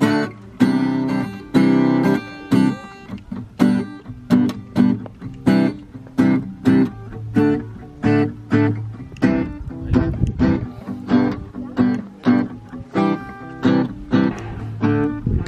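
Acoustic guitar strummed in a steady rhythm, about two chord strums a second, with no singing.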